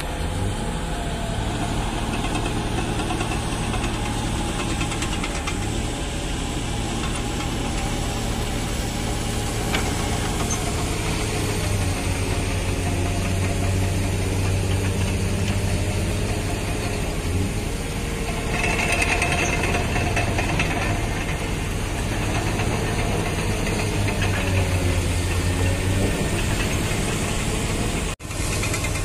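Tugboat's diesel engine running steadily, a continuous low hum, with a brief hiss partway through.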